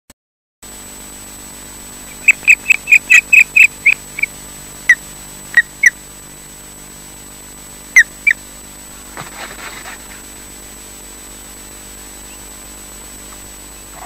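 Osprey calling at the nest: a rapid run of about ten short, sharp whistled chirps, then a few spaced pairs of chirps. About nine seconds in there is a brief rustle as one bird takes off from the nest.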